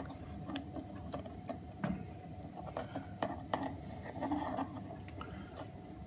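Small scissors snipping through nylon bird netting while it is handled, giving a run of irregular light clicks and brief rustles, over a faint steady hum.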